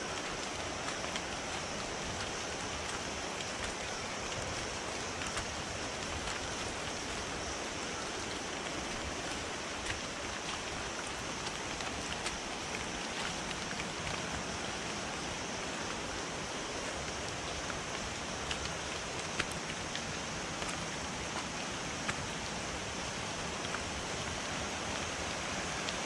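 Steady hiss of water on a wet rain-forest trail, with a steady high hum above it and occasional faint clicks of footsteps on the path.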